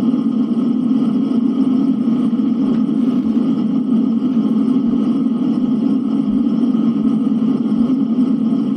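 Steady snowstorm wind, a low, even rumble that holds at one level without gusts.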